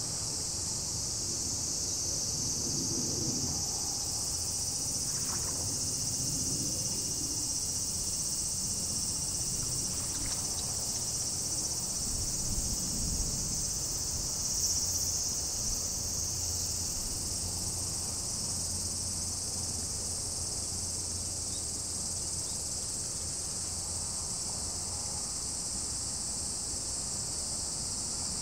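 Steady chorus of insects, a continuous high-pitched shrill buzz with no breaks, and a faint low rumble underneath.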